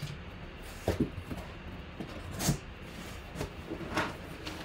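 Cardboard box of foil trading-card packs being handled: three short rustles and knocks, about a second and a half apart.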